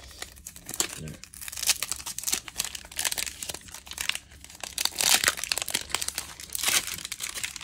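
Crinkling and tearing of a hockey card pack's wrapper being opened and handled, with irregular crackles and several louder rustles.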